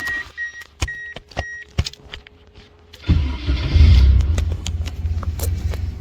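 A repeating high electronic beep and a few sharp clicks, then about three seconds in a Honda K-series four-cylinder engine in a Mazda Miata fires up. It flares briefly and settles into a steady, smooth idle.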